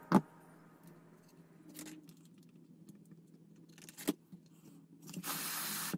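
Handling noises from small model parts and tools: a sharp click just at the start, another click about four seconds in, and a short hiss near the end, over a faint steady hum.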